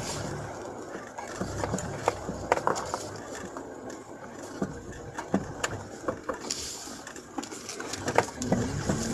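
Inside a car's cabin, low engine and road noise from slow driving, with scattered knocks and rattles.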